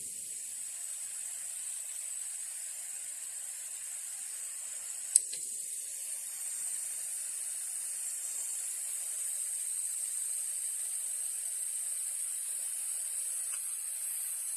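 Troston small USB desktop evaporative cooler running with a steady, high-pitched hiss. A sharp click sounds about five seconds in.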